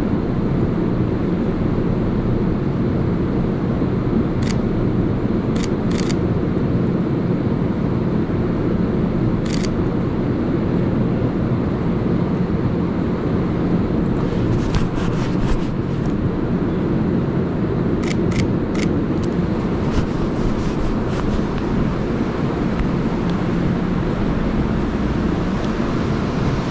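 Steady low rumble and hum of an underground train platform, with a few sharp camera-shutter clicks scattered through it, several in quick succession about halfway.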